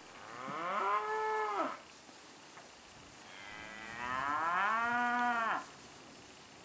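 Angus x Simmental bred heifer mooing twice: a call of about a second and a half, then after a pause a longer call of over two seconds that rises in pitch and then holds steady before stopping sharply.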